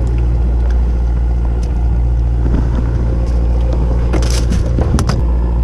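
Fishing boat's engine running steadily with a low drone. A brief rustle and a few clicks of handled gear come about four seconds in.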